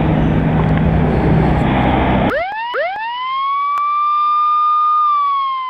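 Street noise with wind on the microphone, which cuts off abruptly about two seconds in as a siren winds up in two quick rising sweeps. The siren holds a steady high tone, then starts slowly falling near the end.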